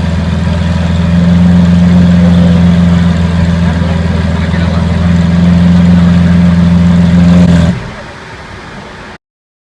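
Lamborghini Veneno Roadster's 6.5-litre V12 idling loudly at a steady pitch, then cutting off abruptly near the end, leaving only quieter background noise.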